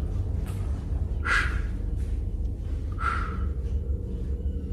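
Steady low rumble of handling noise on the microphone, with three short breaths close to the microphone about two seconds apart.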